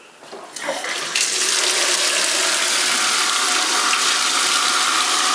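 Bathtub faucet turned on: water starts from the spout about a second in and then runs steadily into the tub.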